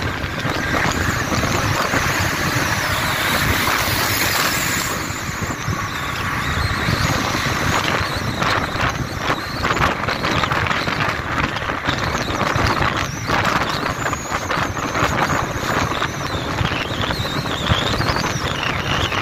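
Steady rushing road and wind noise of a vehicle travelling at highway speed on a concrete road, with faint wavering high-pitched squeaks near the end.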